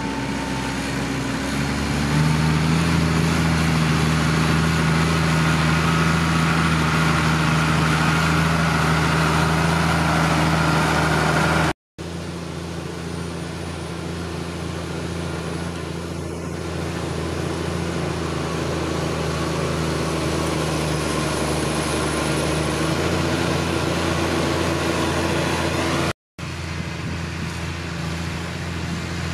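A 140-horsepower Deutz-Fahr tractor's Deutz diesel engine running steadily under load while pulling a five-furrow plough through heavy ploughing. The sound cuts out briefly twice, about 12 and 26 seconds in.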